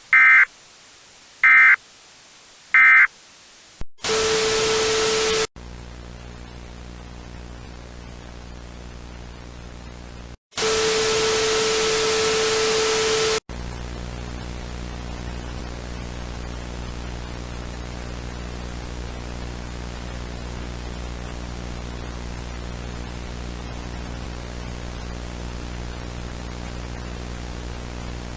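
Three short EAS end-of-message data bursts, then a loud blast of static with a steady tone, steady hissing static with a low hum, and a second loud static-and-tone blast about ten seconds in, after which the hum-laden static runs on.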